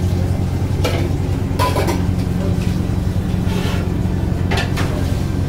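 Commercial kitchen sound: a steady low mechanical hum, with a few short clatters and scrapes of metal utensils at the dosa griddle.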